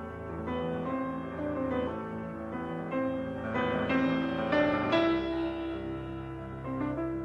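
Instrumental background music led by piano, a steady run of notes and chords.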